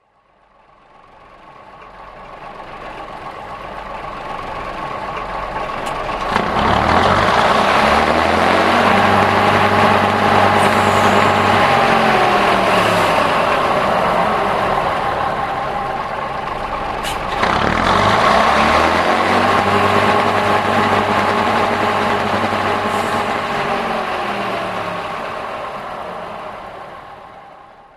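Recorded diesel locomotive engine sound laid over the model railway: it fades in, revs up with a click about six seconds in and rises and falls in pitch, then the same rev-up comes again after a click about seventeen seconds in, before it fades out near the end.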